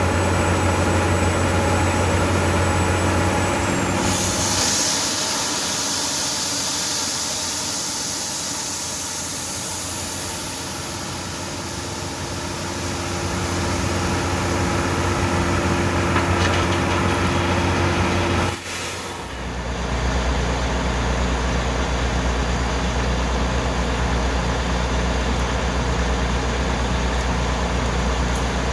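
Engine of a geothermal well-drilling rig running steadily with a low hum. The sound changes abruptly about four seconds in and again near eighteen seconds.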